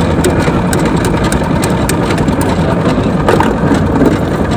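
Street sugarcane-juice crusher's engine running steadily and loudly, with a few short clicks on top.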